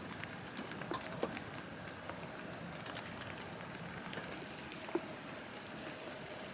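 Faint steady hiss with a few light ticks scattered through it.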